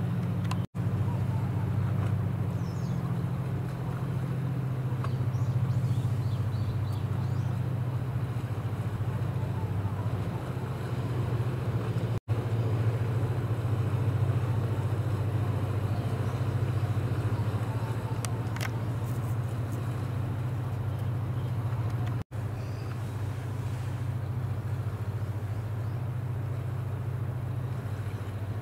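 Tugboat engine drone: a steady, low hum across the water that breaks off for an instant three times.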